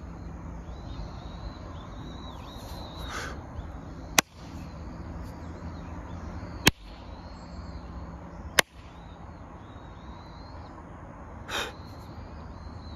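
Three sharp hand claps, roughly two seconds apart, struck as part of a spirit-purification ritual, over birds calling and a steady low hum.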